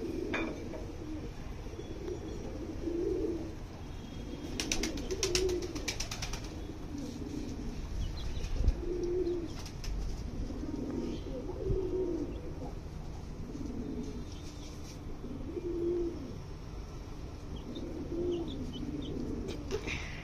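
Domestic pigeons cooing over and over, low repeated coos every second or two. About five seconds in there is a short spell of sharp clicks and wing flaps.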